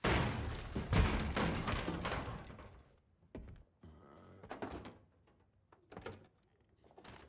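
A door bangs loudly at the start, with a clattering crash that peaks about a second in and dies away over the next two seconds, followed by a few soft knocks and footsteps.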